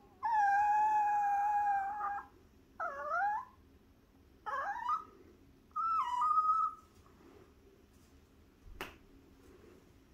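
Small dog whining in four high cries: a long, steady one of about two seconds, then three shorter ones that slide down and up in pitch. It is asking for a plush toy placed out of its reach. A single sharp click near the end.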